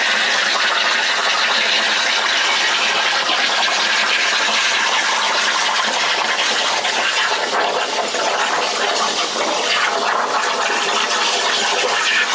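Langmuir Systems Crossfire CNC plasma table cutting 16-gauge steel: the plasma torch arc and its air stream give a loud, steady hiss.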